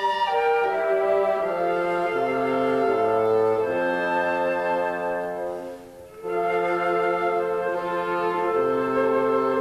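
A live wind ensemble, brass and horns to the fore, playing a slow piece in long held chords. The sound breaks off briefly about six seconds in, a pause between phrases, then carries on.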